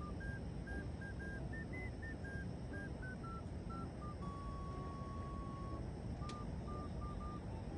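A simple tune played in short electronic beeping notes that step up and down in pitch, with one note held for about a second and a half midway, over a steady low rumble.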